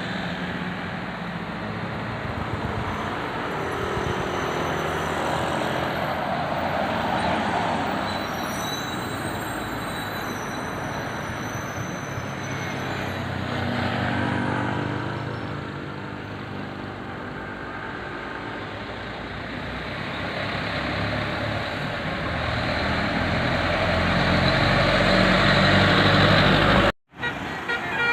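Road traffic with large diesel buses passing, a steady engine-and-tyre rumble that grows louder toward the end before cutting off suddenly.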